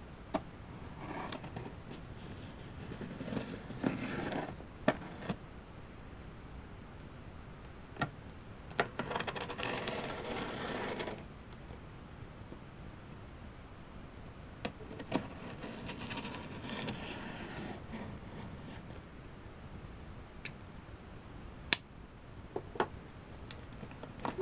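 A cardboard shipping box being opened by hand: bursts of scraping and rustling as tape is cut or pulled and flaps and packing are handled, with scattered sharp clicks and knocks, the loudest near the end.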